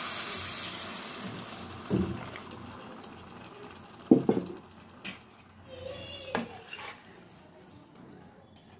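Hot water pouring into a metal karahi of rice, a hiss that fades away over the first two seconds or so. Then a metal spoon knocks and scrapes against the pan a few times as the rice is stirred, the loudest knock about four seconds in.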